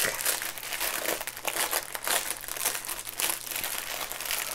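Clear plastic bag holding small bags of diamond-painting drills crinkling as it is handled, in a stream of irregular crackles.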